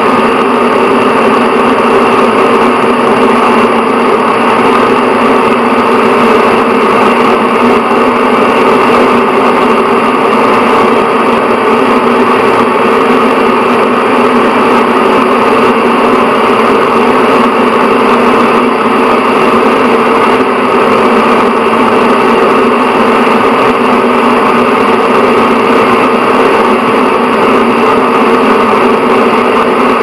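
Bathroom exhaust fan running steadily: an even, unchanging whir of moving air with a low motor hum.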